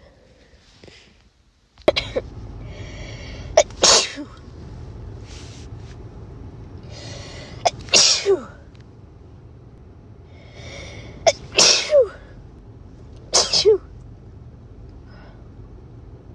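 Four full, unstifled sneezes in a row, about every three to four seconds, the first three each preceded by a drawn-out, hitching in-breath. They are cold sneezes from a nose made itchy and sensitive by a head cold.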